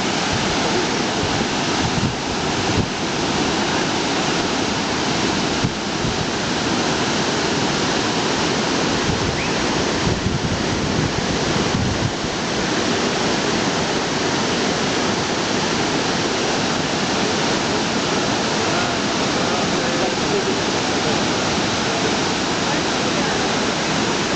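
Millaa Millaa Falls: the loud, steady rush of a waterfall's falling water, unchanging throughout.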